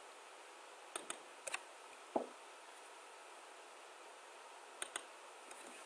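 A handful of faint computer mouse clicks, a pair about a second in, single ones at about one and a half and two seconds, and another pair near the end, over a steady faint hiss.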